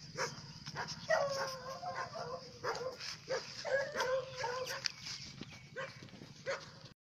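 Small long-haired puppy yapping: short, sharp high barks about two a second, with a few longer, drawn-out whining barks in the middle.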